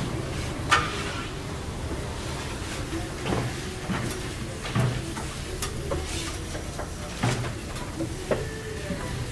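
A metal scraper scraping across a flat-top griddle to clear off bits of food, with irregular clacks and scrapes of metal on the steel plate over a steady low background rumble.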